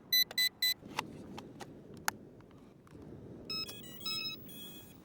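Electronic power-up beeps from a YXZNRC F06 RC helicopter setup: three quick high beeps, a few sharp clicks, then two short stepped tone sequences about three and a half and four seconds in.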